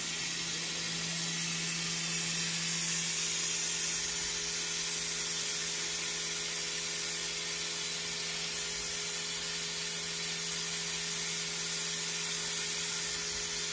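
Haas VF-0E CNC vertical mill spindle running steadily while its end mill cuts along a block clamped in the vise. The sound is a constant hum over an even hiss.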